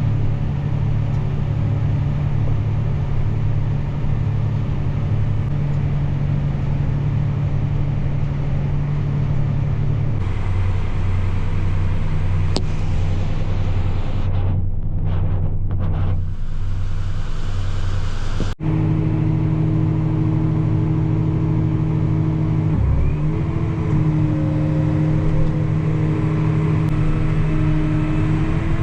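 Tractor engine running steadily, heard from inside the cab; its tone changes abruptly twice, and the pitch shifts briefly a little after two-thirds through.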